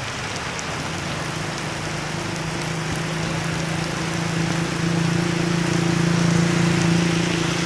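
Heavy rain falling on a flooded road, a steady hiss. Over it, a motorcycle engine's hum grows louder, is loudest about six or seven seconds in, then eases a little.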